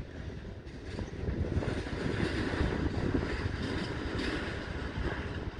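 Wind buffeting the microphone outdoors: an uneven low rumble over a steady hiss.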